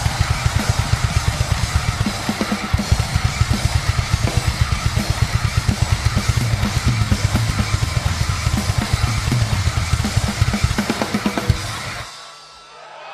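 Live rock drum solo on a full drum kit: a fast, steady stream of bass drum strokes under constant cymbals, breaking off abruptly near the end.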